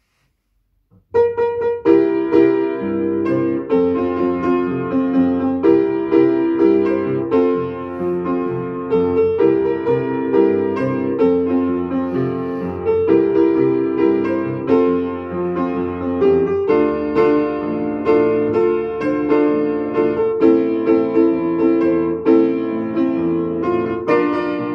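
Upright piano played solo, starting about a second in with a steady rhythm of repeated chords and notes.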